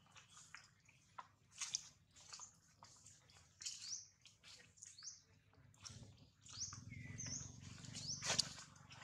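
Many short, high-pitched animal chirps and squeaks, some sliding up or down in pitch, with scattered faint clicks and rustles.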